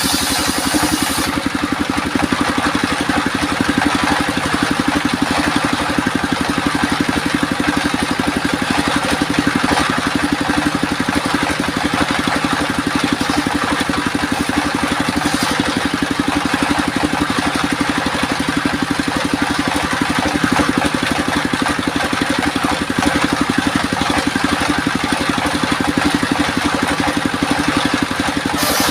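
Homemade circular sawmill machine running steadily, with a fast, even engine-like pulse.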